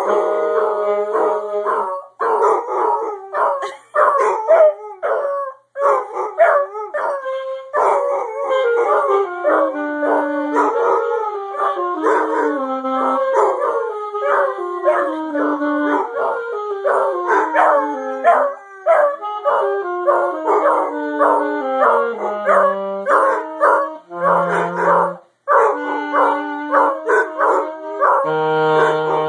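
Basset hound howling along with a saxophone. The sax plays a melody of held notes, with a stepwise falling run in the middle, while the dog's long, wavering howls slide around them.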